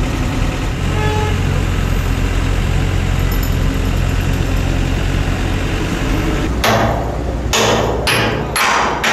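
A machine engine running steadily, then three loud, harsh metallic bursts close together near the end, each nearly a second long, from steel parts of the Ferris wheel being worked into place.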